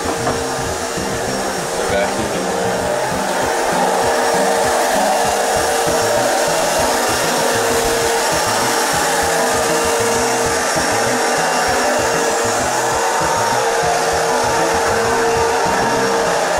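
Background music with a stepping bass line under a loud, steady rushing noise like blowing air.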